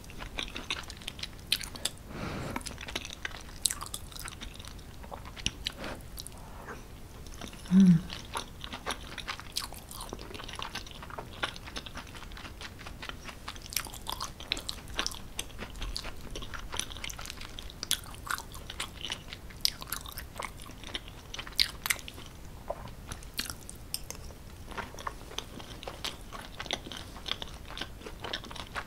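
Close-miked chewing of creamy tortellini pasta with vegetables: many small wet mouth clicks and soft crunches throughout. A brief, loud, low hum-like sound comes about eight seconds in.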